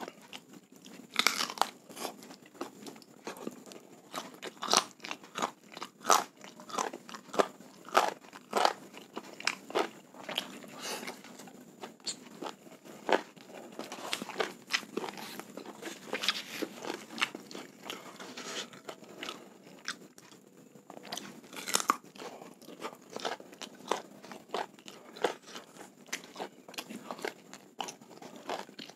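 Close-miked eating: chewing with irregular crunches and sharp mouth clicks, from a mouthful of rice and soy-sauce chicken thigh eaten by hand.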